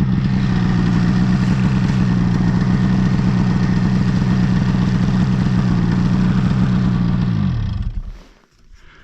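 Snowmobile engine running steadily at idle, then winding down in pitch and shutting off about seven and a half seconds in.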